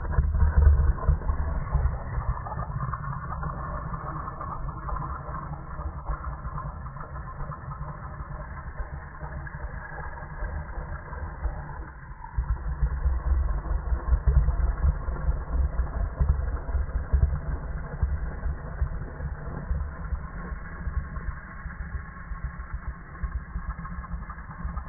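A dog growling and snarling, slowed down so that it comes out as a deep, continuous rumble, swelling louder about twelve seconds in.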